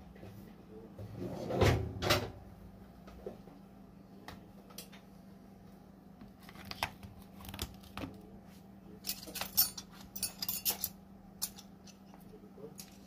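Scattered clicks and clinks of small tools and hard objects being handled, with a louder knock about two seconds in and a quick run of clinks around ten seconds. A steady low hum runs underneath.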